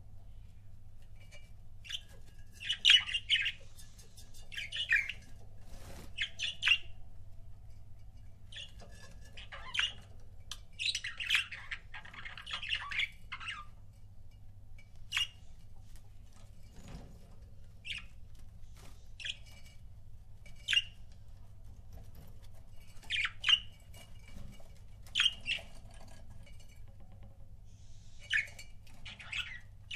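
Budgerigars chirping and squawking in short bursts of rough, scratchy calls, with single short chirps in between, over a faint steady low hum.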